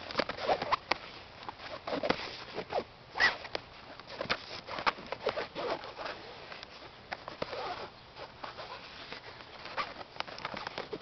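A cat pawing and clawing at a blanket under a chair: irregular scratchy rustling of fabric, in quick uneven strokes.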